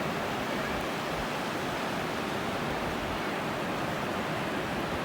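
Steady rushing noise of sea surf washing onto a sandy beach.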